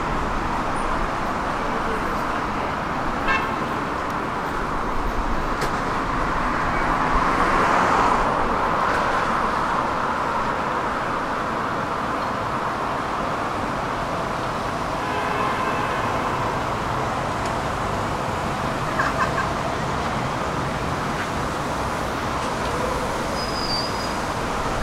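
City street traffic: cars passing with a steady road noise, one vehicle passing louder about eight seconds in.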